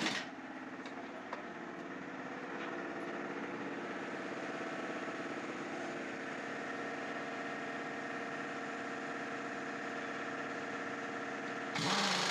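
An engine idling steadily, with a few light clicks in the first seconds. Near the end a louder, harsher machine noise cuts in.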